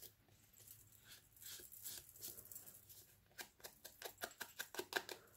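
Ink blending tool with a foam pad rubbed and dabbed along the edges of a folded paper pocket, inking them lightly. Faint soft scuffing gives way, about halfway through, to a quick run of short dabs, about six a second.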